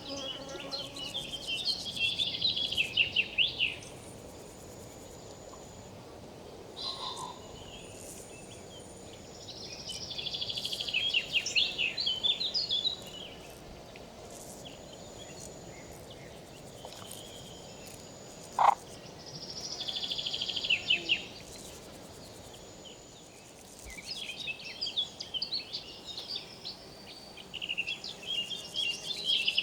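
River insects calling in repeated bouts of rapid, high rattling chirps, each bout a few seconds long, over the steady rush of river water. A single short, sharp sound stands out about two-thirds of the way in.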